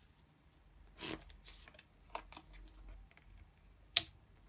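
Tarot cards handled on a table: a brushing slide of cards about a second in, a few soft rustles, and a sharp snap of a card near the end, the loudest sound.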